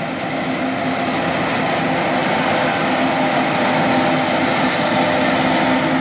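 John Deere S780 combine running steadily with its diesel engine and threshing machinery, slowly growing louder.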